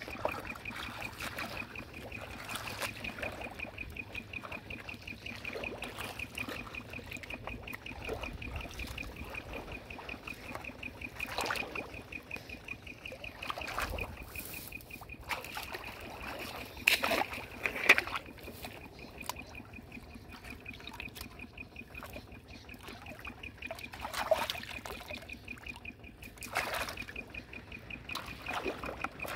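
Shallow muddy water splashing and trickling as a person wades through it and handles a plastic bucket, with two louder splashes a little past halfway. A steady high, fast-pulsing trill carries on behind.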